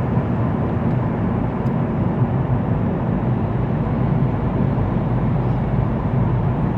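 Steady road and engine noise of a van being driven at speed, heard from inside the cabin as an even low rumble.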